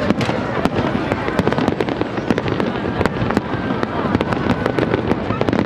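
Fireworks display: many sharp bangs and crackles of bursting shells in quick succession over a steady rumble.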